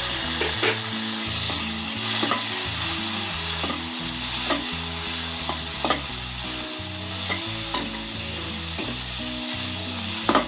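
Chopped tomatoes and onions sizzling in hot oil in a steel kadhai, stirred with a steel spatula that scrapes and knocks against the pan about once a second.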